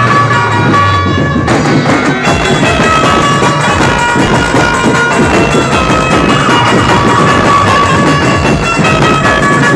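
Loud dhumal band music played through a large loudspeaker rig: dense drumming under held melody notes.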